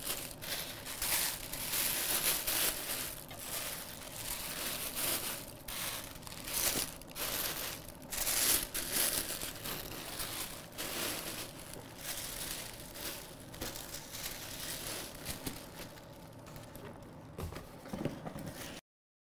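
Acid-free tissue paper crinkling and rustling in irregular bursts as tissue puffs are tucked into a cardboard archive box and the lining sheets are folded and smoothed over them. The crinkling fades in the last few seconds.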